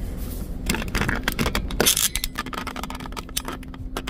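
Rapid, irregular clicks and scrapes over the steady low hum of a car engine.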